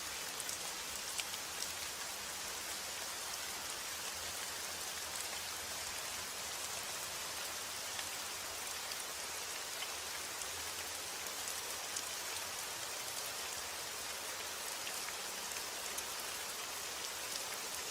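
Steady rain falling on a surface, an even hiss with scattered close drop ticks and no thunder.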